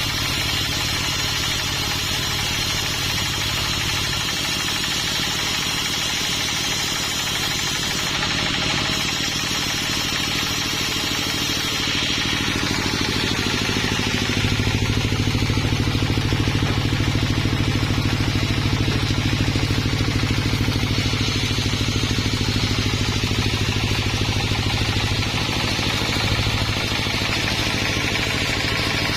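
A sawmill's engine running steadily, getting somewhat louder about halfway through.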